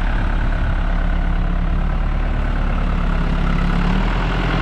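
Farm tractor with a forklift attachment, its engine running steadily at an even pitch.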